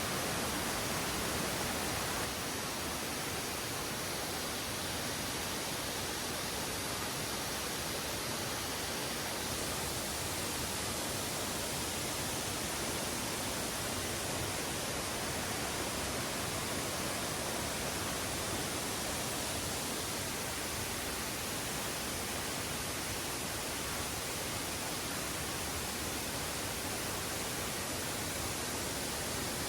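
Steady rushing roar of a large waterfall with a 25 m drop, an even wash of noise with no break.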